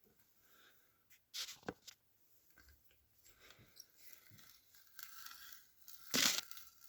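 Adjustable wood bit being turned into wood: scattered crunching and scraping as it cuts, with a few sharper clicks, loudest about a second and a half in and again near the end.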